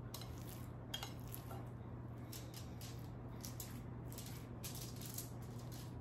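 Hands pressing and patting raw ground turkey flat on aluminum foil: a run of short, irregular wet squishes and foil crackles, with one sharper knock about a second in. A low steady hum runs underneath.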